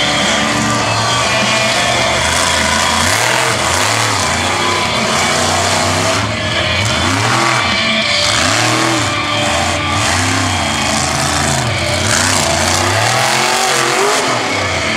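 Monster truck engine revving up and down again and again as the truck runs the course and jumps a car near the end, with tyres digging through dirt.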